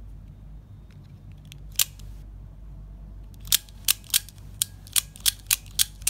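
Mini OTF (out-the-front) automatic knife firing its blade out and back in: sharp metallic snaps, one about two seconds in, then a quick run of about eight, roughly three a second.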